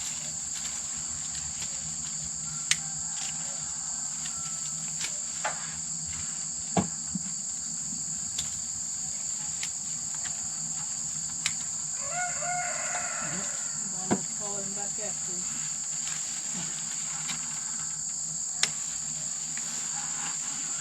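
Steady high-pitched insect chorus, with a rooster crowing once about twelve seconds in and a few sharp clicks scattered through.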